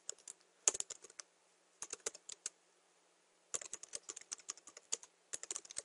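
Typing on a computer keyboard: quick runs of keystrokes in several bursts, with a pause of about a second in the middle.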